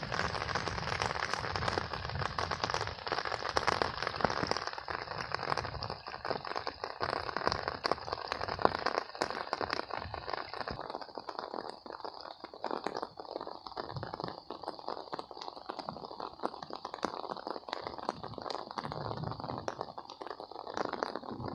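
Rain falling, a dense hiss of many small drop impacts, a little lighter from about halfway through.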